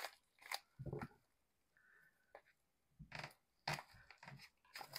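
Faint, scattered crinkles and rustles of a padded paper mailer envelope being handled, a few short sounds with quiet gaps between them.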